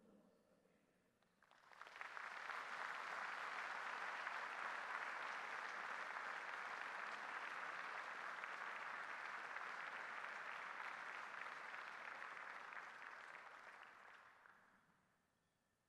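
A large seated assembly applauding: the clapping rises about a second and a half in, holds steady, and dies away near the end.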